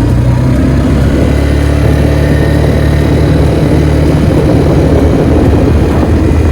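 ATV engine running steadily while riding, under a constant rushing noise.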